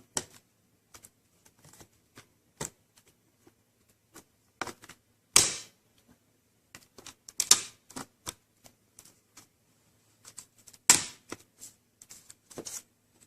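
Scattered sharp plastic clicks and taps from handling a laptop's LCD panel and plastic lid casing as they are pushed back into alignment, with three louder snaps about five, seven and a half, and eleven seconds in.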